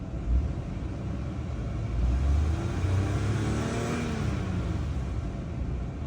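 Toyota V6 engine revved from idle: the pitch rises for about two seconds, then falls back to idle. The engine has logged misfire codes for cylinders 1, 3 and 5 on bank 1.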